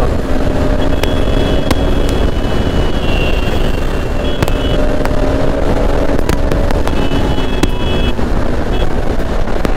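Motorcycle running at a steady cruising speed under heavy wind rush on the microphone, with the engine's steady note underneath. A thin high whine comes and goes several times, and there are a few sharp ticks.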